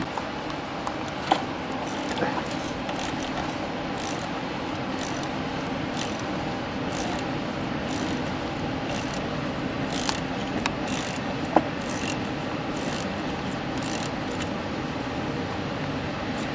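Hand tools clicking and scraping on the tractor's metal parts during repair work, with scattered short clicks over a steady background hum.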